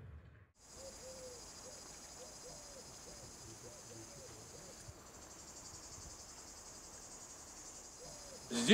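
Insects chirping outdoors in a faint, steady high-pitched trill that starts about half a second in.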